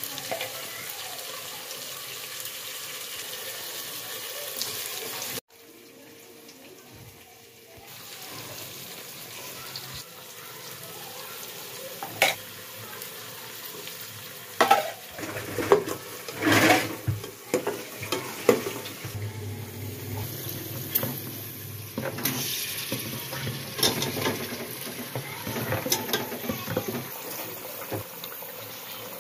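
Oil, tomatoes and spices sizzling in an aluminium pressure cooker, with a steel ladle repeatedly clinking and scraping against the pot as it stirs. The sizzle drops away after a cut about five seconds in, and the sharp clinks come mostly in the second half.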